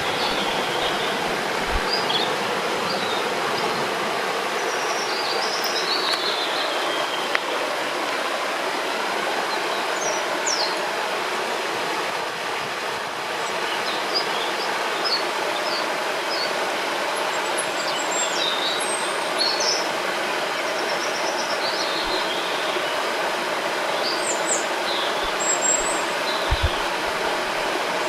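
Steady rushing of a river or waterfall, with small birds chirping and whistling off and on over it.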